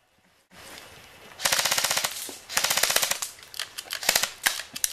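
Airsoft guns firing on full auto: two long bursts of rapid, evenly spaced shots, followed by a few single shots near the end.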